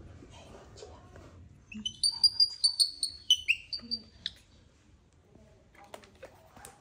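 Baby macaque giving a rapid run of about a dozen short, high-pitched squeaking calls over two and a half seconds, a few of them dropping in pitch, as in a fretful infant cry.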